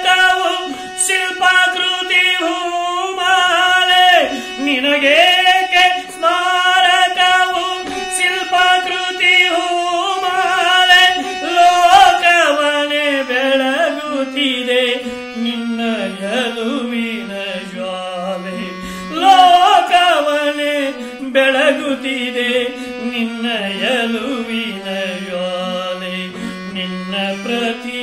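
Harmonium playing a slow melody under a man singing a Kannada verse in long, held, ornamented notes, the melody settling lower in the second half.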